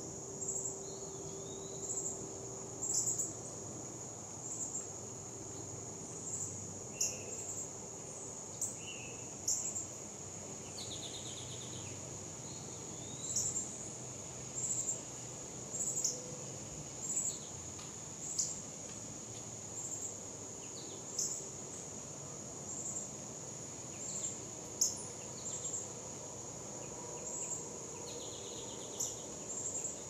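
Insects calling in chorus: a steady high-pitched buzz that swells about every second and a half. Short bird chirps and quick trills come in now and then.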